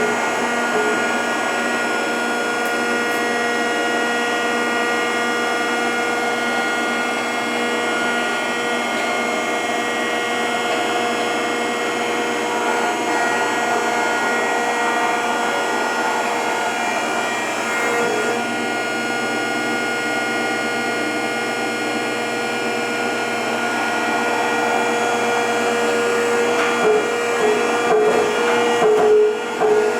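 Rockford 36-inch hydraulic open-side planer running: a steady whine from its hydraulic pump and drive, made of many even tones, turning uneven in the last few seconds.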